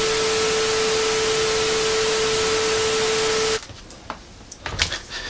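TV-style static transition effect: loud steady hiss with a single steady beep tone, cutting off abruptly about three and a half seconds in, followed by a few faint clicks.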